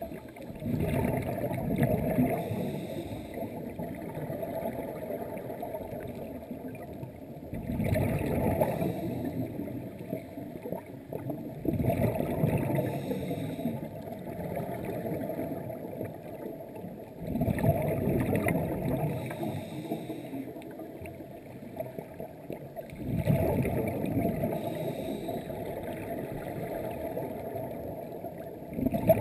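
Scuba breathing through a regulator, heard underwater: five breaths, each a rush of exhaled bubbles that starts suddenly and fades over a few seconds, one every four to six seconds.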